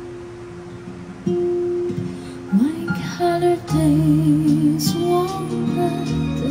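A slow song with plucked guitar and a singing voice, played back over a tall column loudspeaker and a subwoofer driven by a MECHMAN AMH-750 Class AB amplifier module as a sound test. It is quieter for the first second or so, then fuller as the voice comes in.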